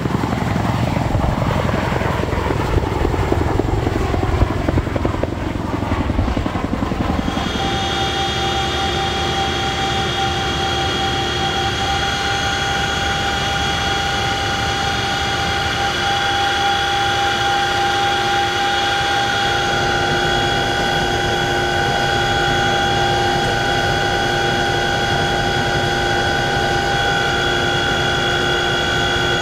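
CH-47JA Chinook tandem-rotor helicopter: a rapid rhythmic beat of the rotors for about seven seconds, then the sound switches abruptly to the steady high-pitched whine of its turboshaft engines, several tones held evenly with little rotor beat.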